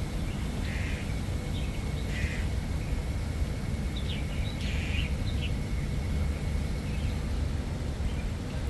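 A few short bird calls, the loudest cluster about four to five seconds in, over a steady low rumble.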